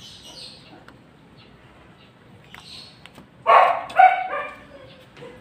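A dog barks twice in quick succession, about three and a half seconds in.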